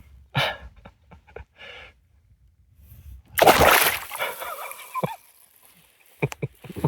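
A big rainbow trout splashing and thrashing at the surface as it is being netted. The loudest splash comes about three and a half seconds in, with smaller splashes and knocks around it.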